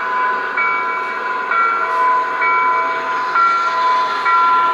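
Sound system of an Aristocraft G scale Dash-9 model diesel locomotive, fitted with a digital sound decoder, playing locomotive sounds as the model runs. It is a steady tone with a higher pattern that switches pitch about once a second, over a constant hiss.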